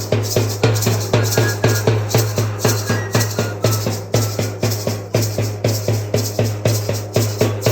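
Background music with a fast, steady drum beat over a deep bass line.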